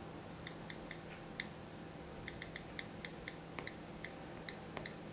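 iPad on-screen keyboard key clicks as a password is typed: about fifteen short, faint ticks at an uneven typing pace.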